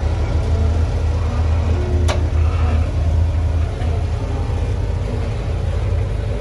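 Rock-crawling buggy's engine running steadily as it climbs a boulder ledge, with a single sharp knock about two seconds in.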